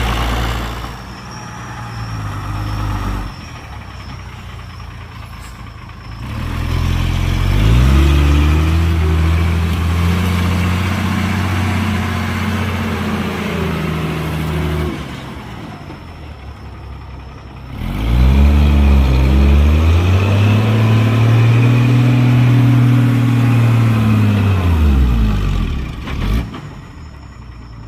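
Heavy diesel engine of earthmoving machinery revving up and holding high for several seconds, then dropping back to idle, twice.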